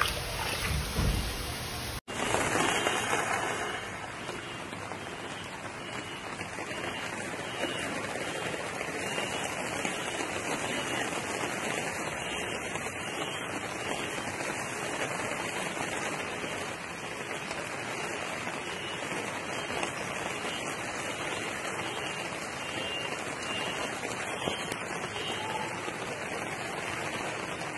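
Heavy rain falling steadily, an even hiss that holds unchanged for over twenty seconds. It begins abruptly about two seconds in, after a short, louder, uneven stretch that cuts off.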